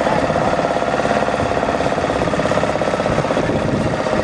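A small engine running steadily, with a fast, even firing rhythm.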